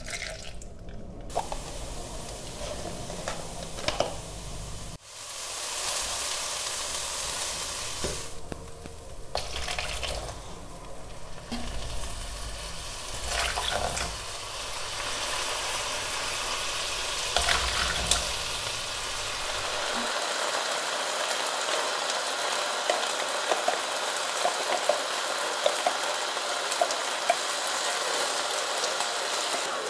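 Risotto rice sizzling in a hot non-stick pan, with small taps of a wooden spoon scattered through the second half. Near the start, liquid is poured into a plastic blender cup.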